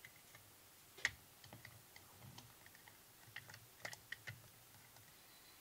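Scattered light clicks and taps as a SIG P230 pistol's frame and removed parts are handled and set down on a work mat. The sharpest click comes about a second in, with a quick cluster of clicks near four seconds.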